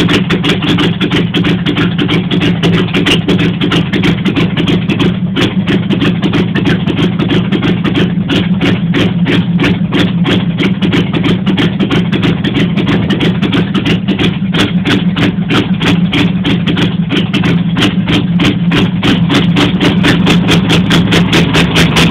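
1989 Jeep Grand Wagoneer's AMC 360 V8, with a two-barrel carburettor, idling loudly shortly after a cold start, its exhaust open at the heads. It makes a steady low drone with an even, rapid pulsing.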